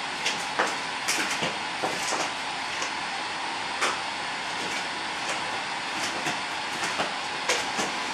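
Radio tuned to an empty frequency, giving a steady hiss of static with irregular crackles and clicks scattered through it.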